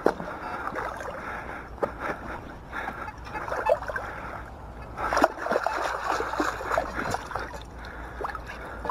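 Shallow lake water sloshing and splashing in irregular bursts, busiest and loudest about five seconds in.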